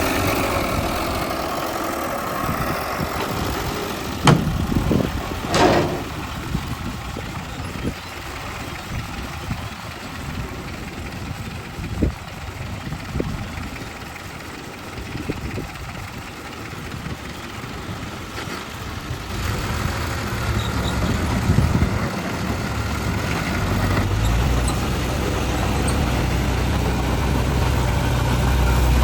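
Heavy diesel machinery engines running, with two sharp knocks about four and six seconds in. Near the end a heavy engine grows louder, as if drawing closer.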